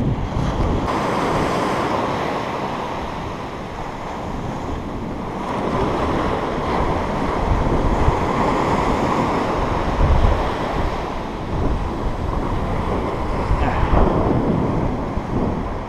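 Surf breaking close by and washing up the sand, swelling and easing, with gusty wind buffeting the microphone.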